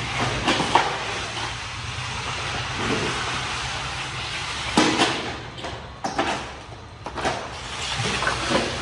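Steady background noise with a low hum, broken by irregular sharp knocks and thuds, the loudest about five seconds in.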